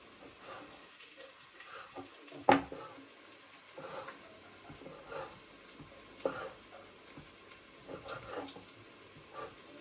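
Sparse light knocks and clinks of kitchen utensils on cookware, with a sharper knock about two and a half seconds in.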